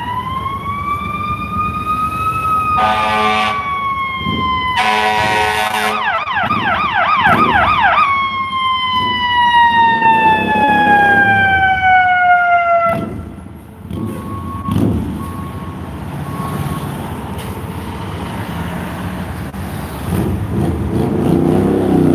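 Emergency vehicle siren: a wail that rises, falls slowly, switches to a fast yelp for about two seconds, then slides down in a long falling wail and cuts off about thirteen seconds in. Two short horn blasts sound about three and five seconds in, and passing street traffic carries on after the siren stops.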